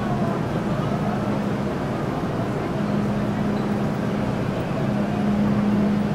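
Inside the cabin of a Metro Cammell M-Train electric multiple unit, its equipment gives a steady low hum over a constant rumbling haze. The hum cuts out briefly about two seconds in and again near five seconds.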